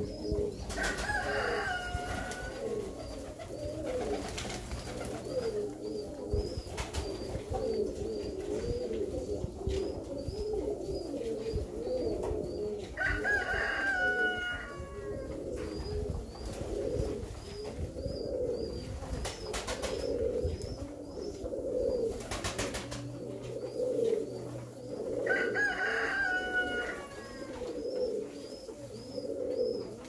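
A flock of Alföldi-Körösi tumbler pigeons cooing continuously, many birds overlapping. A higher-pitched bird call rises above the cooing three times: about a second in, near the middle, and a few seconds before the end. A faint high chirp repeats about once a second.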